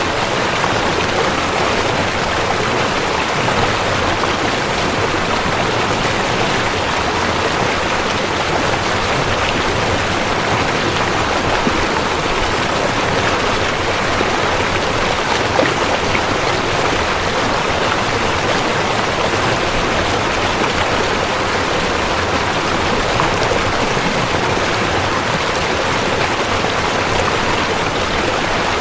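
Steady rushing river water, an even wash of noise with no change in level.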